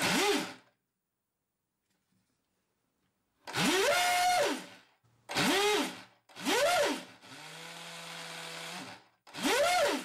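Small brushless motor of a homemade RC speedboat revved by a joystick throttle, its propeller turning in open air. Its whine rises in pitch, sometimes holds high briefly, then falls away, in five short bursts with quiet gaps between. Near the end comes one quieter stretch of about two seconds at a low steady speed.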